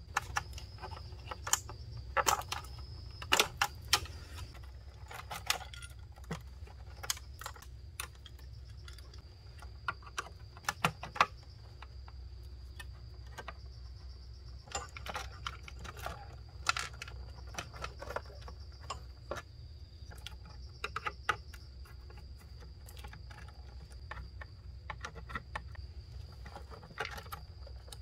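Irregular clicks and light clatter of wires, connectors and small circuit boards being handled and pulled out of a plastic control box, with a few sharper clicks. A faint steady high-pitched tone runs underneath.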